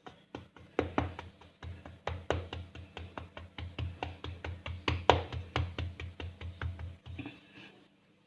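Rolling pin knocking rhythmically against a rolling board while butter-layered puff pastry dough is rolled out into a round sheet, about four to five knocks a second, stopping about a second before the end.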